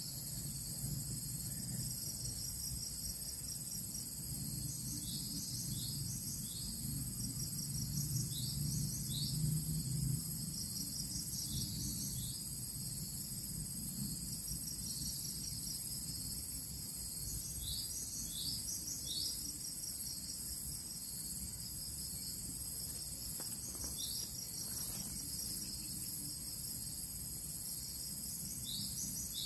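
Steady high-pitched drone of insects, with runs of short, quick chirps coming and going over it.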